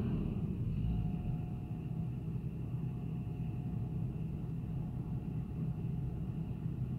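Diesel engines of a Hitachi crawler excavator and a soil-loaded dump truck running together in a steady low rumble as the truck pulls away. The sound eases a little in the first second, then holds even.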